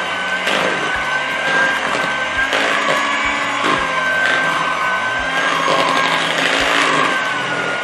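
Electric hand mixer running steadily with a slightly wavering high whine, its twin beaters churning thick cake batter, with occasional low knocks.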